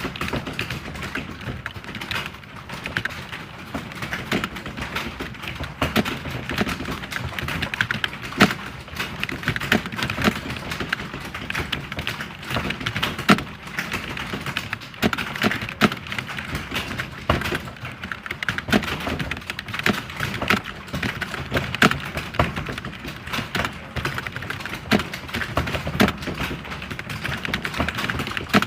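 Computer keyboard typing: continuous rapid key clicks with occasional louder strokes.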